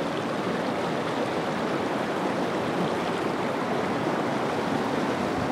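River water rushing over rocks and boulders: a steady, even noise that holds throughout.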